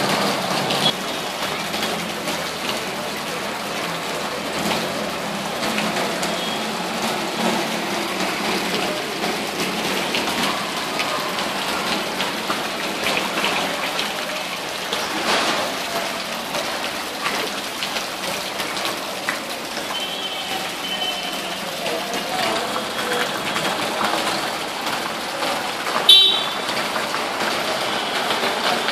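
Steady hiss of rain and water over a flooded street, with a brief sharp, loud sound near the end.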